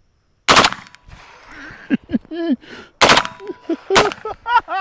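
HK G36C 5.56 mm carbine firing on full auto: a short burst about half a second in, another at about three seconds, then a single shot about a second later.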